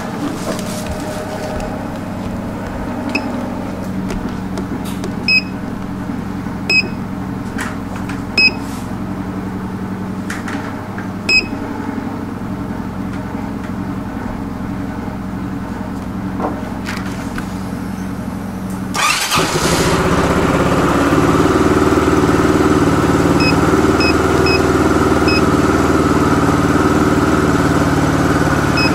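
Several short electronic beeps from a handheld SYM diagnostic scanner over a steady low hum. About two-thirds of the way in, the SYM CruiSym 300 scooter's engine starts and keeps running steadily, with a few more beeps from the scanner.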